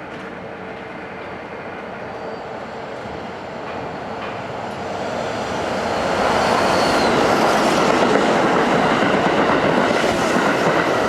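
Electric train running along the station platform, its rail and running noise growing louder about halfway through and staying loud.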